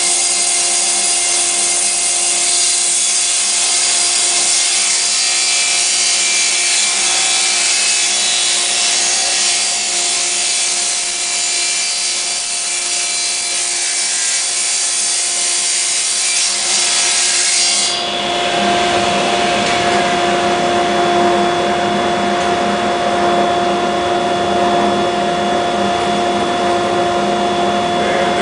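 Table saw running with a steady motor hum while its blade cuts along the edge of a plywood shelf pushed through on a panel-cutter sled, trimming the edge square. The cutting hiss stops sharply about eighteen seconds in, and the blade then spins free.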